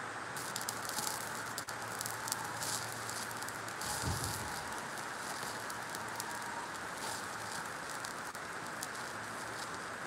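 Stick (arc) welding on steel: the electrode arcing with a steady crackling sizzle and frequent sharp pops. A short low thud about four seconds in.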